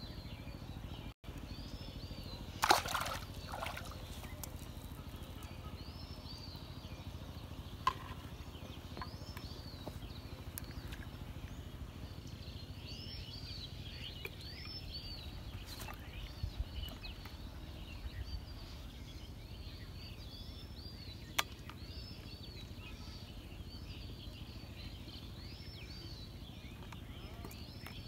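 Outdoor rural ambience: birds chirping over and over in short high arching calls, over a steady low background rumble. About three seconds in comes a loud, sudden sharp sound, and a few single clicks follow later.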